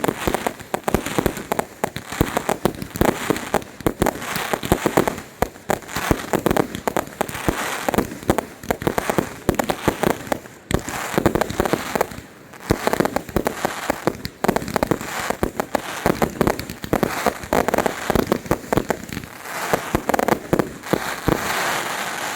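Fireworks display going off in a dense, rapid barrage of bangs and crackles, with only brief lulls.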